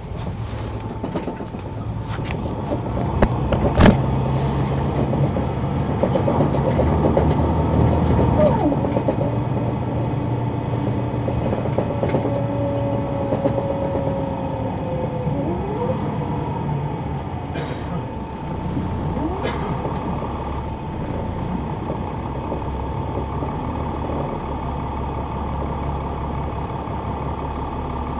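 Caterpillar C9 diesel engine and ZF automatic transmission of a Neoplan AN459 articulated transit bus, heard from the rear seats while the bus is under way. The engine drone builds over the first several seconds, with a sharp click about four seconds in and a few brief whines in the middle before it settles to a steady run.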